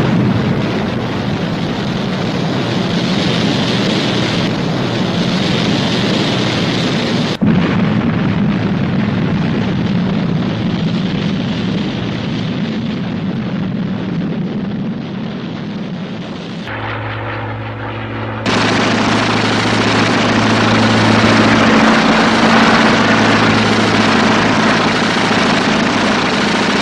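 World War II battle sounds in several spliced segments: a continuous dense din of explosions and gunfire that changes abruptly about seven seconds in and again twice near two-thirds of the way through, the last stretch carrying a steady low engine-like hum under the noise.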